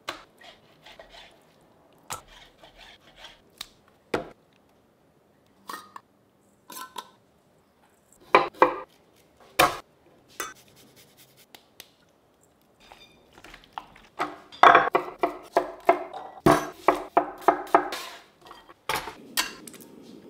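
Kitchen prep sounds: a knife cutting on a cutting board and clinks against a stainless-steel mixing bowl, as scattered knocks with quiet gaps. About two-thirds of the way through comes a run of quick, even knife chops.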